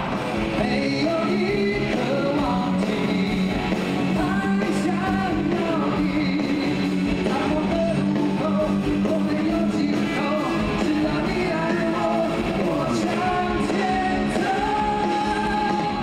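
Live rock band performance: a man singing over electric guitar and a full band.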